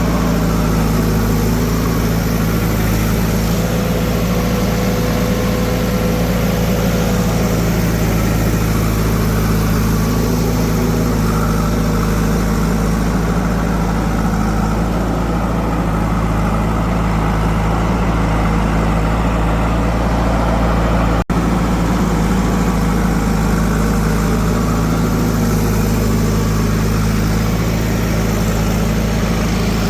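Heavy diesel engine running steadily, with a brief dropout about two-thirds of the way through.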